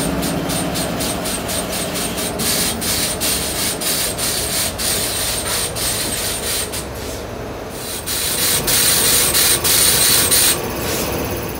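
Compressed air hissing out of a WAP-7 electric locomotive's pneumatic system as it is energised, venting excess air. A steady hiss with a faint high whistle, broken by quick irregular pulses, growing louder about eight seconds in and easing off near the end.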